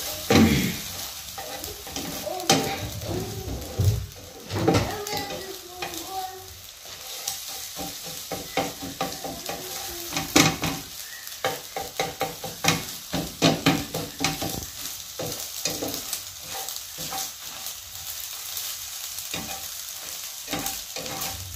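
Beaten eggs sizzling in hot oil in a nonstick frying pan while a spatula stirs and breaks them up, scrambling them. The spatula scrapes and taps on the pan, in a quick run of short strokes through the second half.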